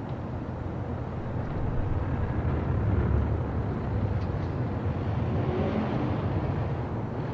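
Old-time city street ambience in which a vehicle engine rumbles low, swelling about three seconds in and then easing off.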